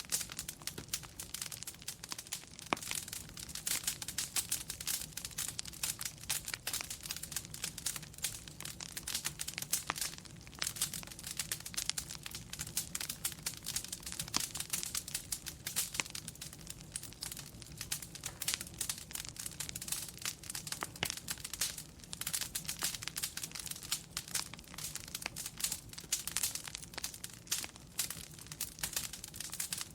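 Wood fire in a fireplace crackling, with dense, irregular pops and snaps over a low, steady rumble.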